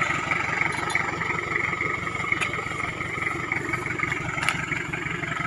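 Pickup truck's engine idling steadily, with a couple of light knocks.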